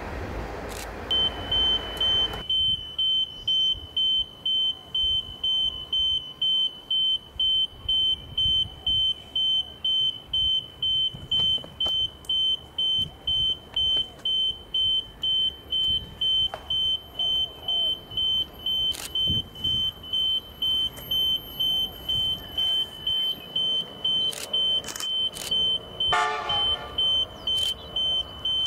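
Electronic warning beeper sounding one high tone on and off about twice a second. A train's rumble cuts off about two seconds in, and near the end a diesel locomotive gives a short horn blast.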